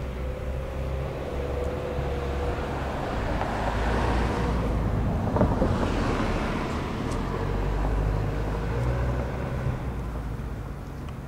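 A road vehicle passing by: tyre and engine noise with a low hum swells to its loudest around the middle and then fades away. There is one sharp click just past halfway.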